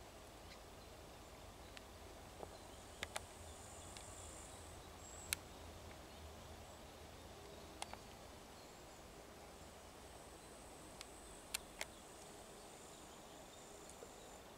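Faint outdoor ambience: a steady low hiss with a thin high buzz that comes and goes twice, and scattered sharp clicks at irregular moments.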